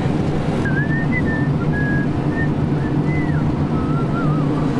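Car engine and road noise heard from inside the cabin while driving, a steady low rumble. Over it, a thin wavering whistled tune starts about half a second in.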